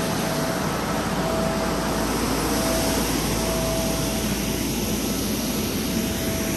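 Two inflatable blowers running steadily, inflating a water slide: a constant rush of air with a steady whine.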